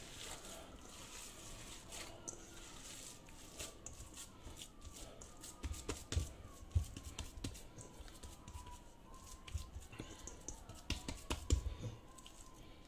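Hands kneading and squeezing raw meatball mixture in a stainless steel bowl: wet squishing with soft thumps and clicks, busier in the second half. A faint steady whine sits underneath.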